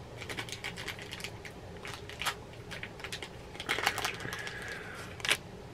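Small cardboard mystery pin box and its packaging being opened by hand: a run of light clicks and crinkles, busiest about four seconds in, with one sharper click near the end.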